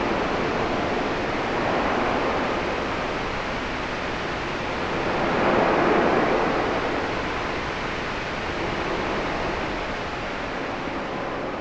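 A steady rushing noise of the white-noise kind played for sleep, swelling gently about two seconds in and more strongly about six seconds in, then easing.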